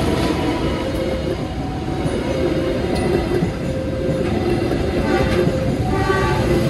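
Train hauled by a diesel locomotive passing close by at a level crossing, its carriages rumbling and rattling steadily over the rails.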